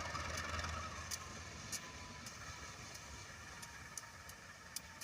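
An engine's low hum dies away about a second in, leaving a faint steady hum and background hiss broken by a few short, sharp clicks.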